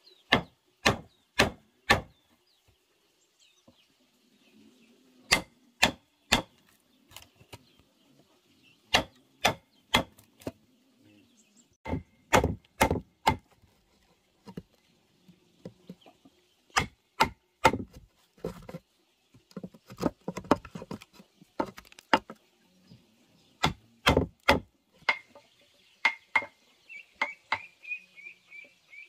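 Steel chisel hammered into a timber plank to cut a mortise: sharp wooden knocks in short runs of two to four blows, about two a second, with short pauses between runs.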